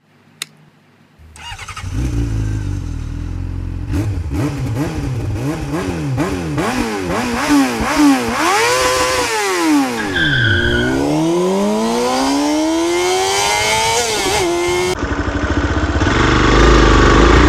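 A motorcycle engine starts about a second in and revs up and down repeatedly, its pitch rising and falling several times. It then drops away and climbs in one long rev. A brief high steady tone sounds about ten seconds in.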